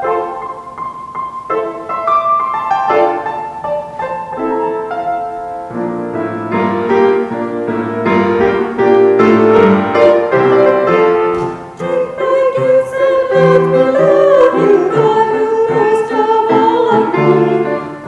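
Piano playing a hymn introduction in a steady rhythm. About twelve seconds in, a held, wavering melody line joins above it.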